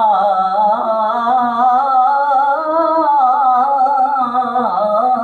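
A man singing an Urdu naat, drawing out one long wordless note that wavers up and down in a melismatic run, unaccompanied by instruments.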